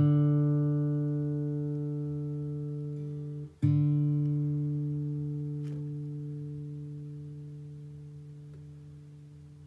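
Open D string of an acoustic guitar plucked and left to ring while it is checked against a tuner. The note is stopped and plucked again about three and a half seconds in, and the second note dies away slowly.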